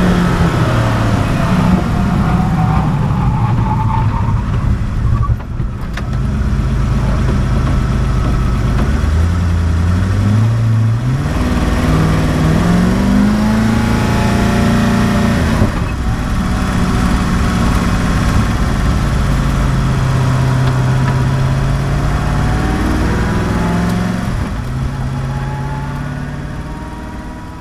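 Koenigsegg One:1's twin-turbo V8 heard from inside the cabin. The engine note falls in the first seconds, climbs in pitch in a few quick steps around the middle, holds steadier, and fades out near the end.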